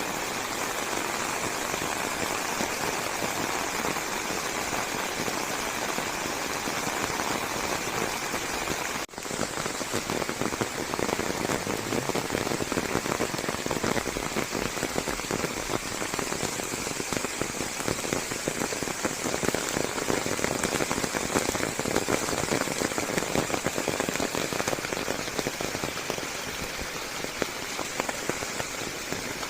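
Steady rain falling, a dense even patter. About nine seconds in it cuts out for a split second, then resumes a little louder.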